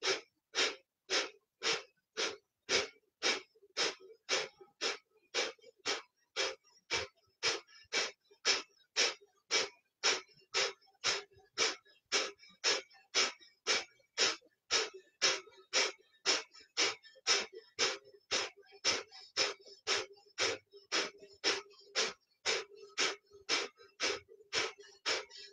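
Kapalabhati (skull shining breath): rapid, forceful exhales snapped out through the nose, a little under two a second in an even rhythm, each followed by a quiet reflexive inhale.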